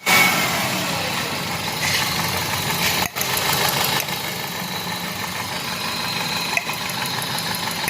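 Four-cylinder Toyota car engine idling with a misfire: one cylinder is dead because its fuel injector is not being fired by the ECM.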